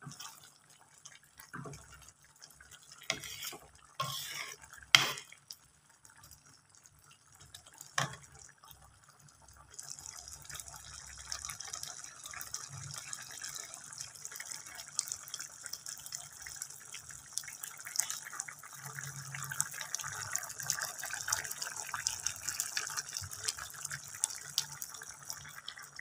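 A spatula knocks and scrapes a few times in a pan of thick dhal and spinach curry. From about ten seconds in, the curry bubbles with a steady fine crackle as it simmers.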